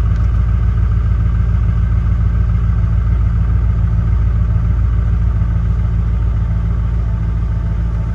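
LBZ Duramax 6.6 L V8 turbo-diesel idling steadily in the first seconds after a cold start at −18°F, heard from inside the cab.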